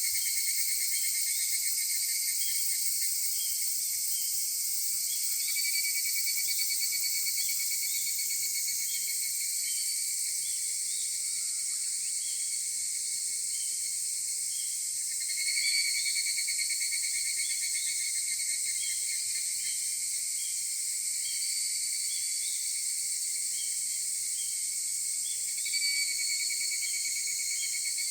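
Higurashi (evening cicadas) calling in a chorus: a dense, steady high-pitched shrill, with a nearer cicada's call starting loudly about halfway through and again near the end, then fading.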